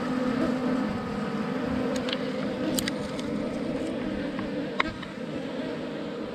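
Honeybee colony in an underground nest buzzing, a steady dense drone of many bees, with a few light clicks in between.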